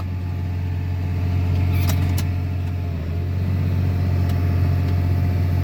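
Tractor's diesel engine running steadily under load, heard from inside the cab, with two short clicks about two seconds in.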